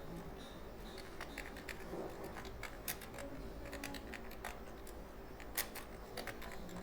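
Computer keyboard being typed on: an uneven run of short key clicks, several a second.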